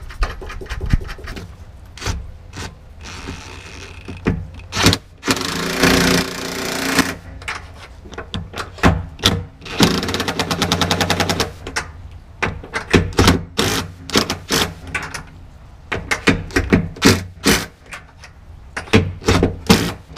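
Ratchet wrench tightening a nut onto a bolt through a steel trailer cross member: irregular clicks and knocks, with two longer runs of fast, even clicking about five and ten seconds in.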